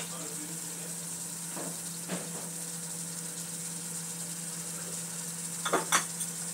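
Chicken with onion and garlic sizzling steadily in an aluminium wok, with a few short clatters near the end.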